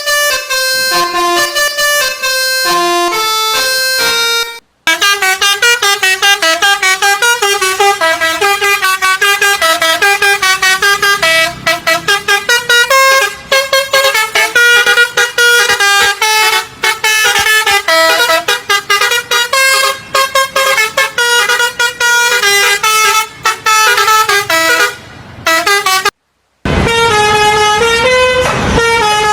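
Bus telolet basuri multi-tone air horn playing a melody, the notes stepping quickly up and down. It cuts off briefly about five seconds in and again near the end, where an engine-like rumble sits under the tune.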